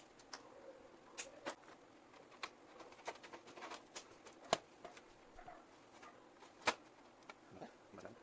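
Scattered light clicks and taps, irregular, of hands working with cables and parts in a PC case; the sharpest clicks come about four and a half and just under seven seconds in.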